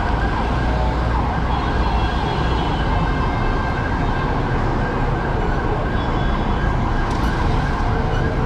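An emergency vehicle's siren wailing over steady city street traffic noise.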